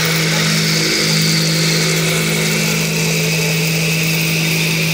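Machinery at a concrete pour running steadily, a continuous engine drone with a constant low hum. It comes from the transit mixer feeding the chute and the concrete needle vibrator.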